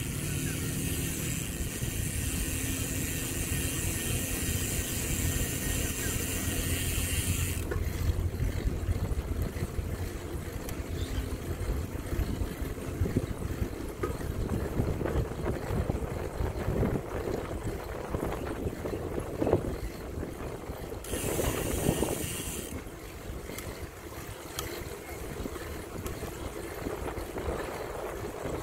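A bicycle being ridden on a paved path: a steady rattle and rumble from the bike and its tyres, full of small clicks. A high hiss lies over it for the first seven seconds or so and again briefly about 21 seconds in.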